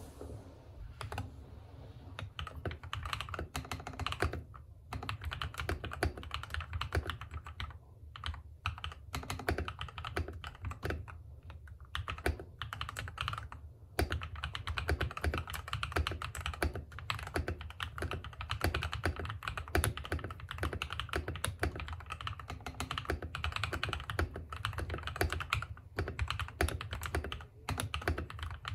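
Steady typing on a compact mechanical keyboard with KTT Kang White linear switches lubed with Krytox 205g0, foam and tape modded: a fast, irregular run of key clacks with a few short pauses.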